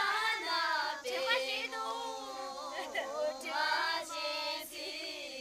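A group of girls singing a song together, unaccompanied, with several voices holding notes of a second or two.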